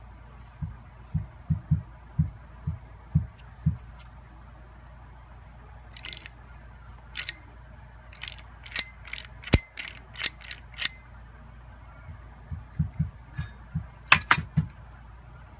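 Hole saw kit parts and case being handled: a run of dull knocks, then a string of sharp metallic clicks in the middle, then more knocks with a couple of clicks near the end.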